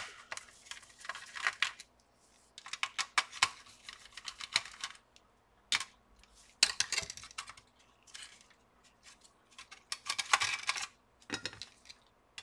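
Clicks, taps and light scrapes of a screwdriver and gloved hands working a small circuit board loose from a laptop's plastic chassis. They come in scattered little clusters with short quiet gaps, and one sharp click falls a little before the middle.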